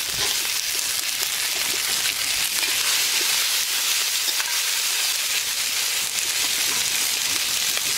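Chopped tomatoes sizzling in hot oil and fried spice paste in a metal kadai as they are stirred, a steady frying hiss.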